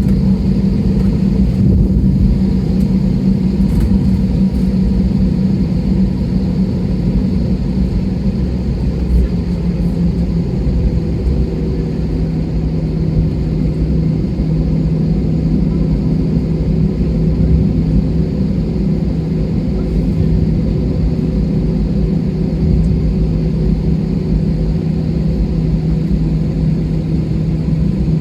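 Steady low drone of an airliner's jet engines at idle, heard inside the passenger cabin, with a constant hum whose pitch drops slightly about twelve seconds in.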